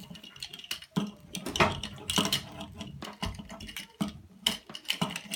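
Plastic Transformers action figure being handled and adjusted by hand: a run of irregular small clicks and taps as its plastic parts are moved and knock together.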